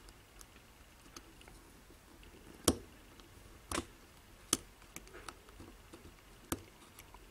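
Sharp metal clicks and small ticks from a BEST interchangeable-core lock cylinder being handled and worked with a metal tool as it is taken apart. There are four louder clicks, spaced about a second apart through the middle, with fainter ticks between them.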